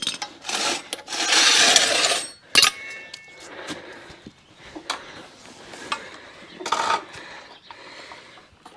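Scraping and knocking of metal workshop gear being handled: a loud scrape lasting about a second near the start, a sharp knock, then scattered light clicks and another short scrape about seven seconds in.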